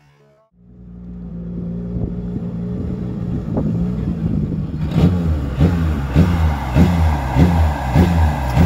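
A BTCC touring car's engine running as the car pulls up, growing louder. About halfway through it settles into a lumpy idle that pulses regularly, a little under twice a second.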